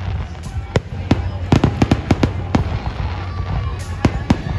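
Fireworks display going off: a string of bangs and crackling pops, coming in quick clusters about a second and a half in and again near the end.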